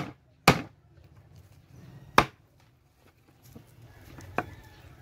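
Long-bladed knife chopping through a sweetlips fish onto a slatted wooden table: four sharp chops at uneven intervals, the last one fainter.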